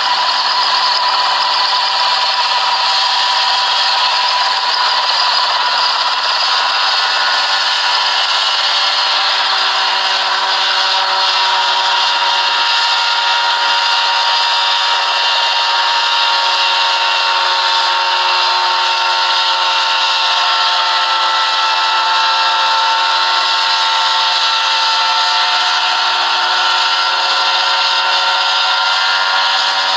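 Single-seat ultralight helicopter in a low hover: its small engine and rotor run steadily with a high-pitched drone, the pitch wandering slightly as the throttle is worked.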